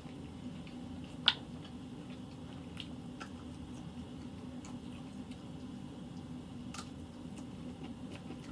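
A person quietly chewing food, with small wet mouth clicks over a steady low hum. A sharper click comes about a second in and another near seven seconds.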